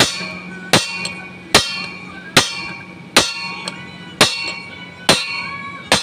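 Steel hammer striking a drift rod held on a universal-joint (cross joint) bearing cup, driving the cup into a propeller-shaft yoke. There are eight blows at a steady pace of a little under one a second, each with a metallic ring after it. The cup is being tapped in until the groove for its lock clip is clear.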